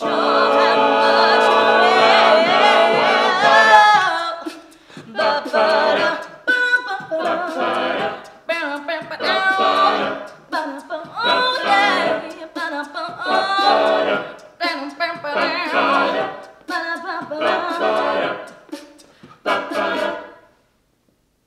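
A mixed-voice a cappella group singing in close harmony with no instruments: a full held chord for about four seconds, then short, choppy rhythmic phrases, stopping abruptly near the end.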